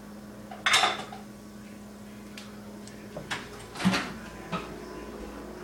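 Kitchen cupboard and dish clatter: one loud sharp bang under a second in, then three smaller knocks around three to four and a half seconds, over a steady low hum.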